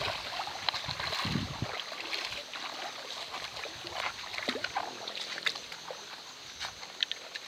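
Shallow river water splashing and trickling, with many small sharp splashes and drips.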